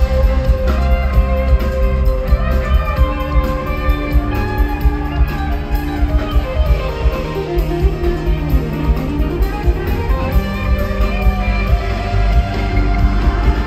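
Rock band playing live through an instrumental passage: guitar out front over bass and drums. A melodic line bends down and back up in pitch near the middle.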